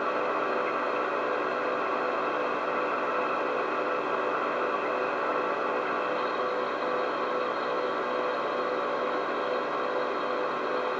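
Steady whirring room hum with hiss and a few constant tones, unchanging throughout.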